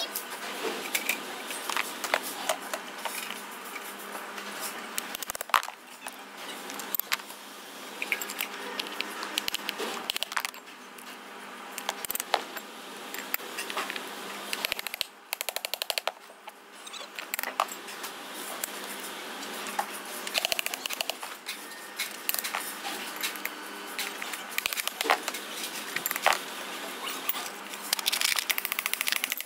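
Rapid, irregular clicks and knocks of hand work on parts, over a steady hiss, growing denser and louder near the end.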